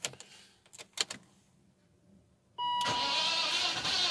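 A few clicks from the ignition key and switchgear, then about two and a half seconds in a chime from the BMW E39 instrument cluster and the starter cranking the petrol inline-six with a steady rhythm. The engine cranks but does not fire.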